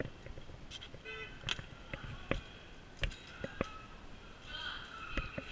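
Faint, scattered footsteps and knocks on a hard floor, with brief faint voices in the background.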